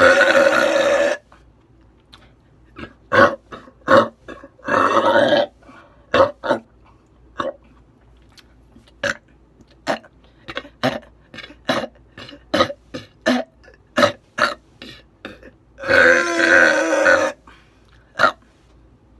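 A woman burping: three long, loud burps, one at the start, one about five seconds in and one about sixteen seconds in, with many short, sharp sounds between them.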